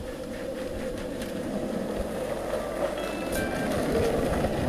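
Urethane wheels of a lie-down street luge board rolling fast on asphalt: a steady rolling noise that grows louder as the board passes close, loudest about four seconds in.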